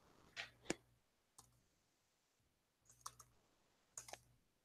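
A handful of faint, scattered clicks of keys and trackpad on a Surface Book 2 laptop, in near silence.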